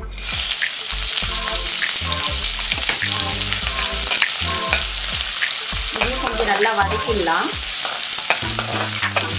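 Chopped onions dropped into hot oil in a kadai, sizzling loudly as they fry and are stirred. The sizzle starts suddenly as the onions go in and stays steady.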